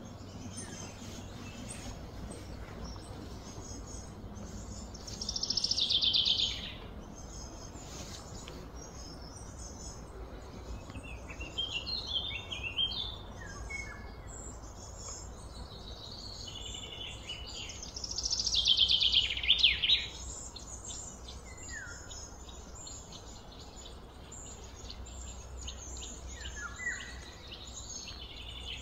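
Wild birds singing and calling, with two louder falling phrases about six seconds and about nineteen seconds in, over a steady low background hum.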